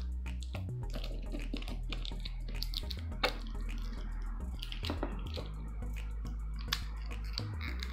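Small crinkles, clicks and scratches of fingers picking at and peeling the wrapping of a toilet-paper-roll-shaped plastic toy capsule, over soft background music with a bass line that steps from note to note.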